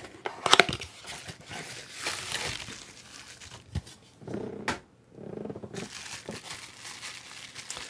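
Box and packaging of a miniatures kit being opened and handled: crinkling and rustling, with a few sharp clicks.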